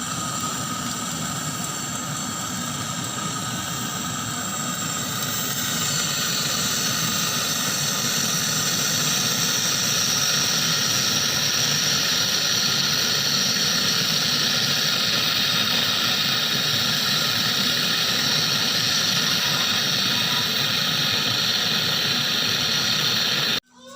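Steady hissing with high whining tones over a machine hum, typical of freon being charged into a refrigerator's refrigerant system while the unit runs; it grows louder about six seconds in and cuts off suddenly near the end.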